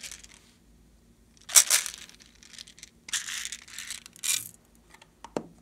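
A small square plastic case handled and scraped over a slime tray: several short crinkling, scraping bursts, then a light knock near the end.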